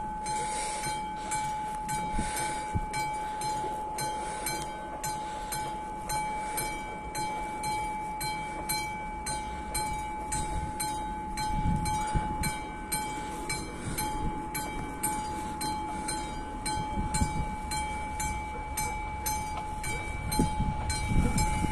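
Classic mechanical bell of an AŽD71 railway level-crossing warning signal ringing with evenly repeated strikes, about three a second. It starts as the red lights begin to flash, warning of an approaching train.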